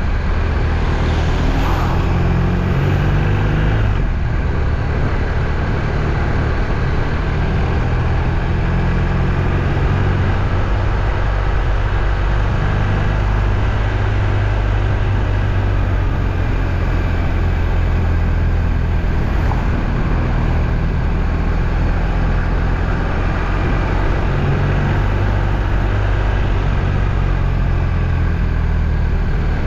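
Steady low rumble of a motor vehicle's engine and road noise, unbroken and even in level.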